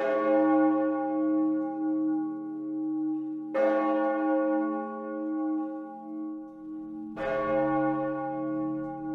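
A church bell tolling slowly: three strokes about three and a half seconds apart, each ringing on and fading away before the next.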